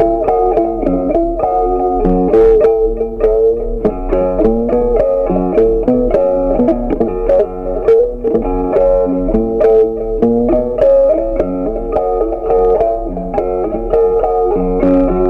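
Background instrumental music: a steady run of short notes.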